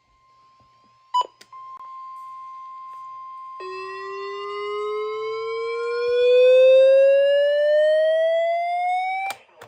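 Weather radio alert for a severe thunderstorm warning. The broadcast's steady 1050 Hz NOAA Weather Radio warning alarm tone sounds, with a short sharp beep about a second in. From about three and a half seconds in, a receiver's siren alarm joins it, rising slowly in pitch and growing louder, and everything cuts off together with a click near the end.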